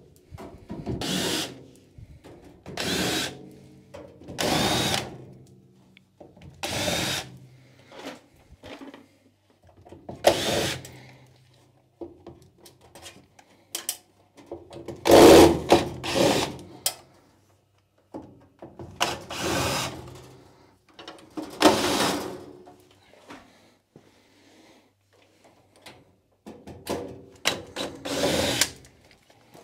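Power drill-driver backing screws out of the incubator's back panel, running in about a dozen short bursts of a second or less with brief pauses between.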